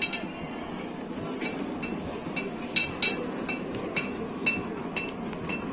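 Hand hammer striking hot iron on an anvil: short ringing metallic clinks, about two a second at an uneven pace.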